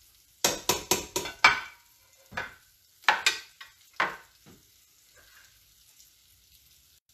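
A metal ladle scraping and knocking against a saucepan and bowl while soft grits are served out: a quick run of about five strokes, then a few scattered ones.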